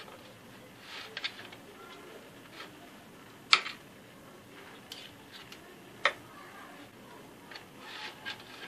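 Small metal spatula spreading a crunchy chocolate-feuilletine croustillant over a biscuit on a metal tray, with light scraping and scattered clicks of the blade knocking against metal. The two loudest clicks come about three and a half and six seconds in.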